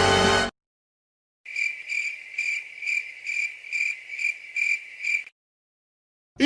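Cricket chirping, the 'awkward silence' gag effect: an even chirp repeating about two and a half times a second for a few seconds, after the tail of a music clip cuts off about half a second in.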